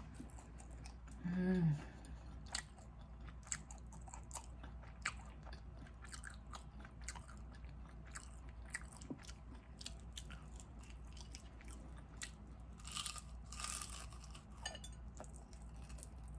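Chewing crispy shrimp tempura: a steady run of small, sharp crunches, with a brief hummed "mmm" about a second and a half in.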